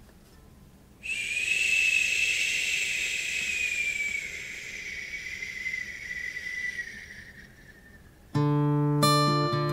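A long airy whoosh with a thin whistling tone that slowly falls in pitch and fades away over several seconds, then guitar music with plucked notes starts abruptly near the end.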